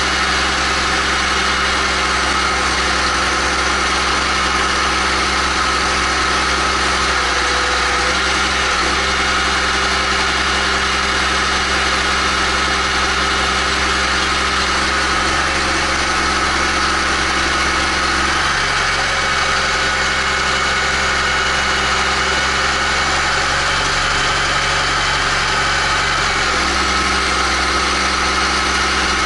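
Case IH Magnum 310 tractor's six-cylinder diesel engine idling steadily, heard close to its vertical exhaust stack. Its low note shifts slightly for several seconds past the middle, then settles back.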